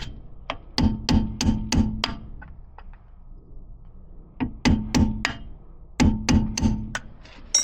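Hammer blows on a T30 Torx bit seated in the brake rotor's retaining screw, striking to break the screw loose without stripping it. A stripped screw would have to be drilled out. The blows are sharp and each rings briefly off the metal, about three a second, in three bursts with short pauses between.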